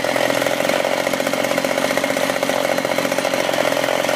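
Freshly reassembled 1970s Eager Beaver 10-inch two-stroke chainsaw engine running steadily at an even speed.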